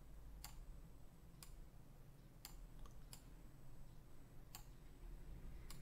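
Faint single clicks of a computer mouse, about six of them spaced roughly a second apart.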